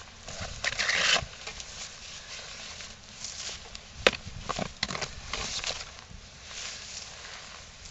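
Rustling and scuffing of a padded jacket and fishing gear being handled in dry undergrowth, with a loud stretch of rustling about a second in and a single sharp click about four seconds in.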